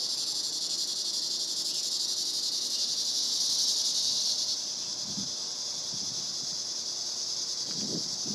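Insects droning outdoors: a steady high-pitched buzz that swells a little in the middle and eases off about four and a half seconds in.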